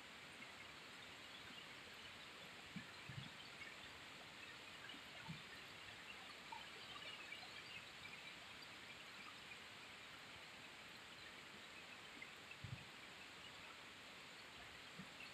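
Faint, steady rainfall, an even hiss speckled with drop sounds, with a few soft low thumps about three, five and thirteen seconds in.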